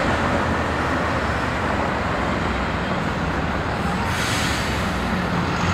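Steady road-traffic noise with a PCC streetcar running across the junction, and a brief swell of hiss about four seconds in.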